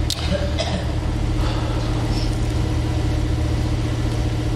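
Steady low machine hum, like an engine running at idle, holding an even level with a few faint brief sounds over it.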